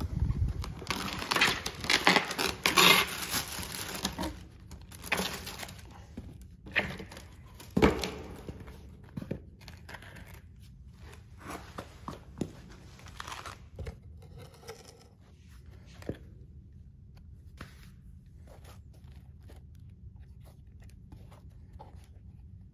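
Cardboard shoebox being opened, with paper wrapping rustling and crinkling loudly for the first few seconds. Then scattered knocks and light handling noises as new sneakers are taken out and turned over, with a sharp knock about eight seconds in.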